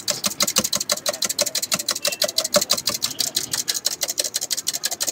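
A fork beating eggs fast in a small steel cup: quick, even clinks of metal on metal, about ten a second.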